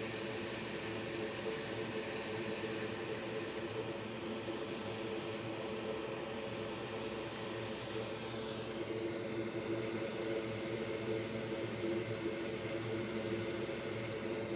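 A small blower motor running with a steady whir and hum.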